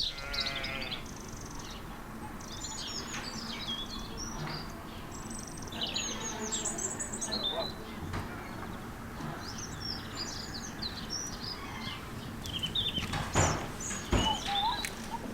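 Small songbirds singing and chirping, many short high notes and trills overlapping one another throughout, over a faint steady outdoor background.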